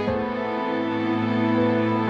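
Slow, sad background music of held notes that change about every second.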